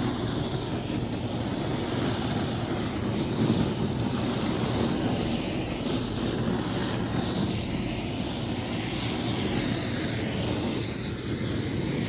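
Hose-fed gas flame gun burning steadily, a continuous rushing noise of the gas flame with no breaks.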